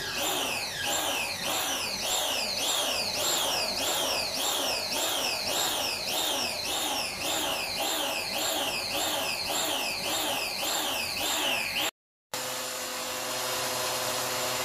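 Hyundai electric pressure washer running and spraying water from its lance, a continuous whine that rises and falls about twice a second. It cuts out suddenly near the end and comes back steadier. The washer is still building weak pressure, which the owner puts down to something clogged inside.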